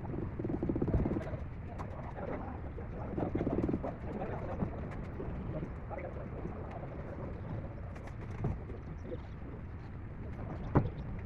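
A pigeon cooing in low pulsing phrases, twice in the first four seconds, with a sharp knock near the end.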